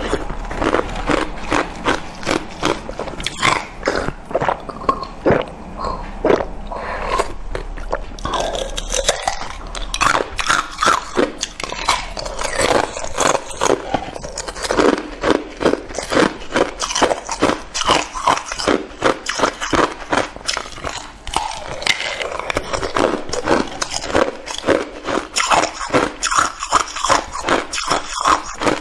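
Red-dyed ice crunching between the teeth as it is bitten and chewed, in rapid sharp crunches several a second.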